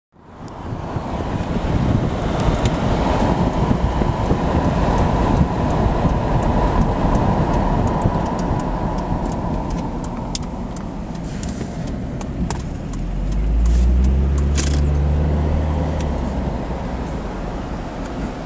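Road and wind noise from a 1996 Jaguar XJS convertible driving with the top down. A deeper, steady engine note swells in about two-thirds of the way through, with a few sharp ticks.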